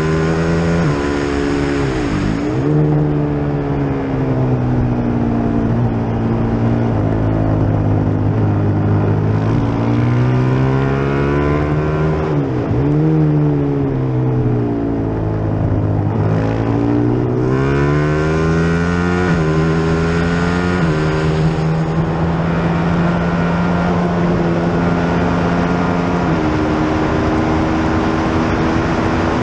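Onboard sound of a 450 cc single-cylinder racing motorcycle at race pace. The engine note drops sharply as the rider shuts off and changes down for corners, a couple of seconds in and again around the middle. It then climbs through a run of upshifts in the second half.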